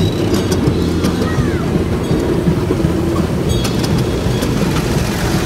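Ride-on miniature railway train rolling along its track: a steady low rumble with a few sharp clicks, once about half a second in and again around three and a half seconds in.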